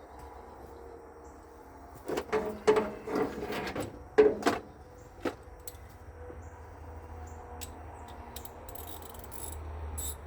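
Knocks and clanks of hands and tools working on a tractor's battery and cables: a quick cluster of them about two seconds in, lasting a couple of seconds, then a single knock.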